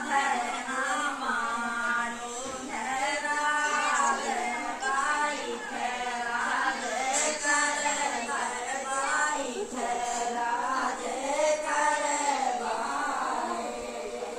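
Women singing a sohar, the folk song sung to celebrate a child's birth, with long wavering held lines. The singing trails off near the end.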